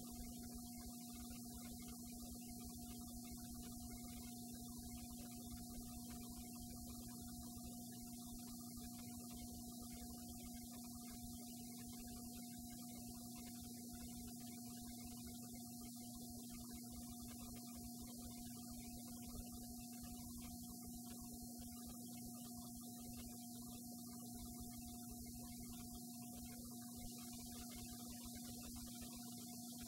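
Faint, steady electrical mains hum with a low tone and a higher tone.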